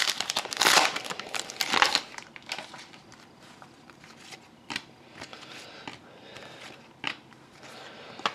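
Foil trading-card pack wrapper crinkling as it is torn open and the cards are pulled out, for about two seconds. Then come quieter, scattered soft clicks and rustles of the cards being flipped through.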